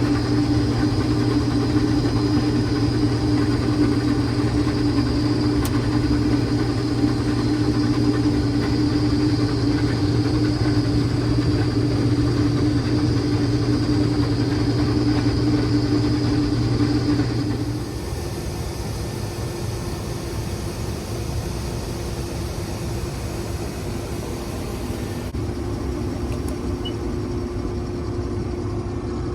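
Combine harvester running steadily while harvesting peas, a constant machine hum with a steady whine. About two thirds of the way through it drops to a quieter, lower steady hum.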